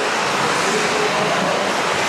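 Traxxas TRX-4 RC scale crawler running, its electric motor and gear drive making a steady whirring noise.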